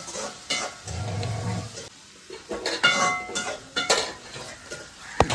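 Metal cooking pots and utensils clanking and knocking, with a ringing metallic clang about three seconds in.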